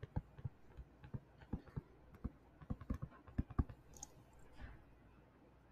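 Stylus tip tapping and clicking on a tablet screen during handwriting: an irregular run of light clicks that stops about four seconds in.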